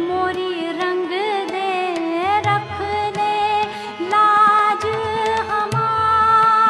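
A woman singing a Sufi kalam in Hindustani semi-classical style, an ornamented line with pitch glides and a long held note near the end, over sustained harmonium tones and low hand-drum strokes.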